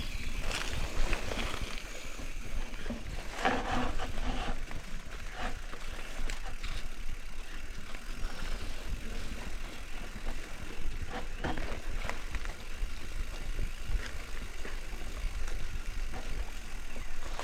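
Mountain bike riding over a rough dirt trail: a steady rolling rumble with scattered clicks and rattles over bumps, and wind buffeting the microphone.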